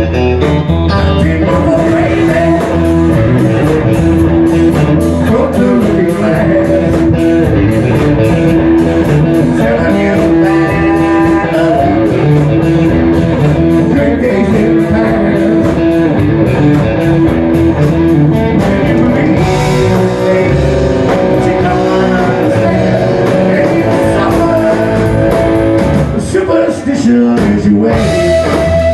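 Live rock band playing loud and close: electric guitars over a drum kit, with a man singing into a microphone.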